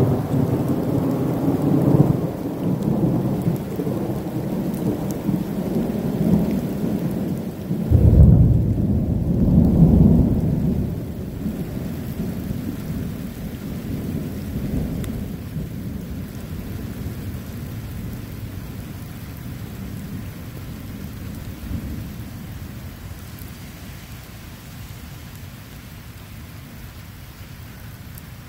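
Thunder rumbling over steady rain. A louder peal of thunder breaks out about eight seconds in, rolls for a few seconds, then the rumble slowly dies away, leaving the rain.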